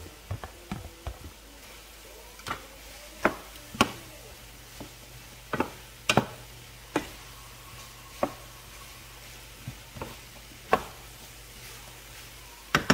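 A spatula stirring cubed Spam into potato cubes in a square nonstick frying pan: sharp, irregular knocks and scrapes of the spatula against the pan, about one a second, over a faint sizzle.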